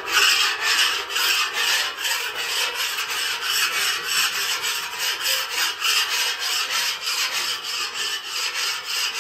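Metal scraper scraping a hot flat-top griddle's steel cooktop in quick, even strokes, about four a second. It is clearing off excess oil that has not yet seasoned, the sign of a griddle given too much oil too fast.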